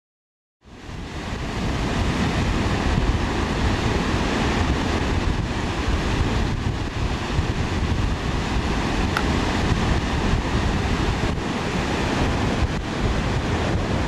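Wind buffeting the microphone, a heavy low rumble, over the steady rush of rough surf breaking on a sandy beach. It cuts in suddenly about half a second in.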